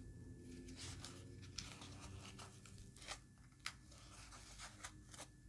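Faint rustling of satin fabric being handled and folded, with a few soft, scattered ticks.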